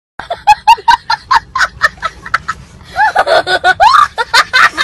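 Laughter in rapid short bursts, breaking into longer rising and falling whoops about three seconds in.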